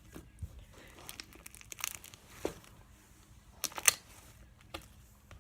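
Slime being squeezed and stretched by hand, giving scattered short crackles and sticky snaps, the loudest few close together a little before four seconds in.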